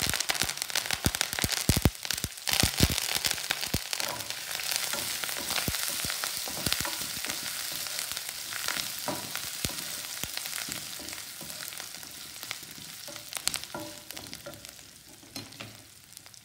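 Fresh curry leaves spluttering in hot oil with mustard seeds, chillies and ginger, the tempering (tadka) for lemon rice: loud sizzling with sharp crackles and pops in the first few seconds, settling to a steady sizzle that slowly fades. The tempering is stirred with a wooden spatula in a nonstick kadhai.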